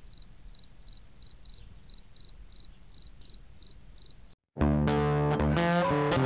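Cricket chirping steadily, about three short high chirps a second. It cuts off, and music with held, wavering tones starts about four and a half seconds in.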